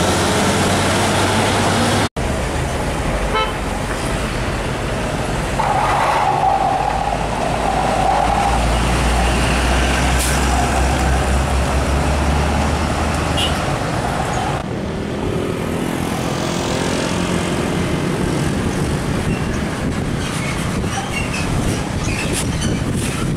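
Heavy diesel trucks driving past one after another, engines running with tyre and road noise, the sound jumping abruptly twice between clips. A vehicle horn sounds for a few seconds about a third of the way through.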